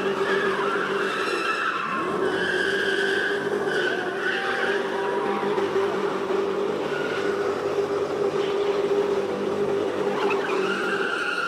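Car engines running at speed with tyres squealing: a steady held drone with higher, wavering squeal tones above it.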